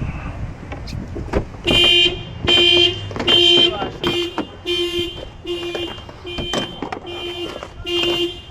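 Car alarm sounding the car's horn in a long run of evenly spaced honks, about one and a half a second, starting about two seconds in.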